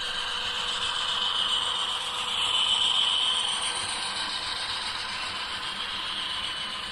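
HO scale model freight train, with Union Pacific diesel locomotives leading tank cars, rolling past close by: a steady mechanical whir and rattle of motors and wheels on the track, with a high hiss, swelling to its loudest about three seconds in as the locomotives pass.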